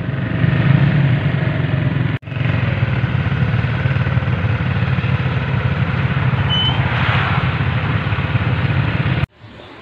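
Small underbone motorcycle (kapchai) engine running steadily at low speed, a strong low drone with wind and road noise over it. It breaks off for a moment about two seconds in and cuts off suddenly near the end.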